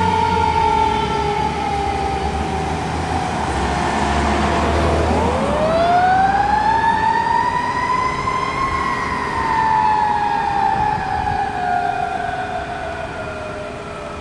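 Fire engine siren wailing. Its pitch falls slowly, then about five seconds in it winds up again and slowly falls off. A low engine rumble sits under it at first, and the siren grows fainter near the end as the truck moves away.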